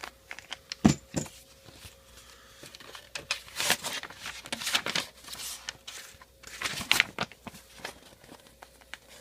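Packaging being handled during an unboxing: irregular crinkling and rustling of wrapping, with a sharp knock about a second in.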